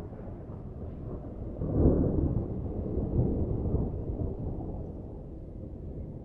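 Rolling thunder: a deep rumble that swells sharply about two seconds in, rolls on, then slowly fades over the following seconds.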